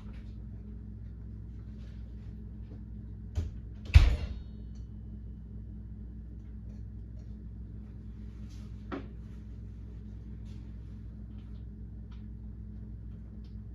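A steady low hum with a sharp knock, then a louder bang with a brief metallic ring about four seconds in, and a small click near the middle.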